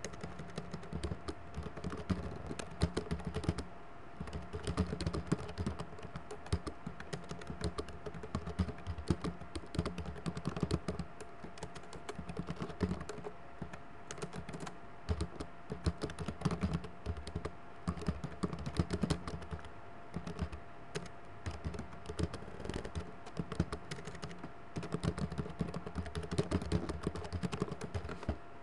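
Typing on a computer keyboard: quick runs of keystrokes broken by short pauses, over a faint steady hum.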